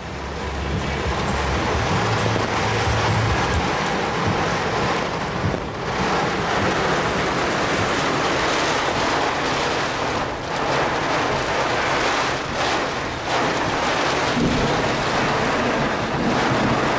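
Heavy rain beating on a car's roof and windows, heard from inside the cabin as a loud, steady dense roar, with a low rumble during the first few seconds.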